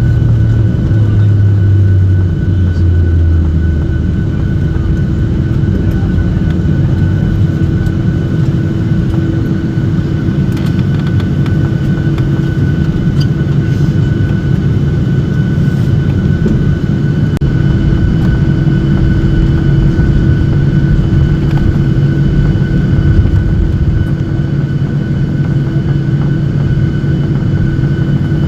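Steady jet engine and airflow rumble heard inside the cabin of a Boeing 737-800, with a constant whine from its CFM56-7B turbofans.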